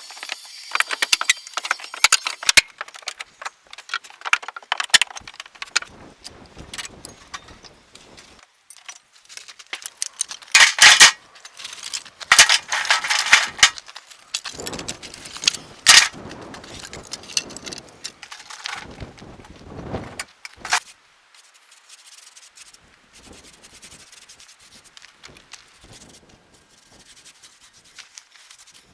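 Irregular clatter, knocking and scraping of hand work on wood, with rubbing sounds; loudest in the middle, quieter in the last third.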